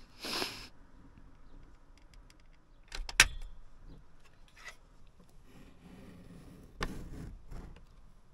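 Scattered clicks and rubbing from hands working a caulking gun and smoothing sealant along a van's window frame. A sharp click a little after three seconds in is the loudest.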